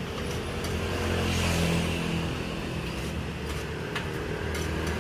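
A steady low mechanical hum, engine-like, with a few light clicks, the loudest about four seconds in.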